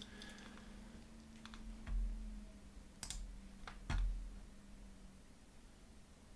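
A few short computer mouse clicks, two of them with a dull thump, over a faint low steady hum.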